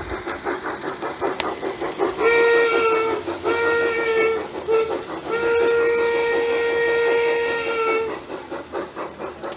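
Model steam locomotive's sound system chuffing in a fast steady beat, then blowing its steam whistle long, long, short, long: the grade-crossing signal, with the last blast held longest.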